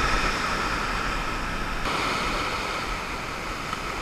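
Ocean surf washing up and back over the sand at the water's edge: a steady rush of broken waves and foam that eases slightly toward the end.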